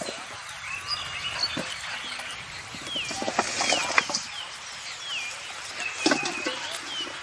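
Birds calling outdoors: a run of short, downward-sliding whistled notes repeated every half second or so from about three seconds in, over a steady background hiss with a few sharp ticks.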